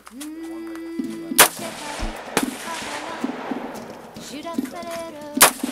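Three rifle shots from a Yankee Hill Machine YHM-15 AR-15 carbine: two about a second apart, then a third some three seconds later, each cracking sharply with a short echo. Background music plays throughout.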